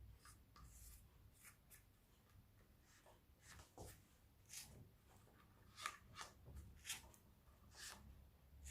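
Faint, scattered scratching and light taps of a metallic pen tracing a line on a mesh wig cap stretched over a block head, with a few sharper ticks in the second half.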